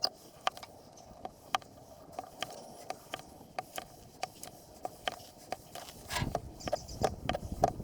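Footsteps of a person walking, short crisp steps about two a second. A louder rustling scrape comes in about six seconds in.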